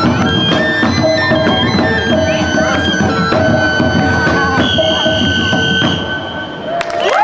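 Traditional Moluccan music accompanying a cakalele war dance: rapid drumming under short ringing tones of several pitches, with a high held tone from about four and a half seconds in. The music drops away near the end as a rising shout begins.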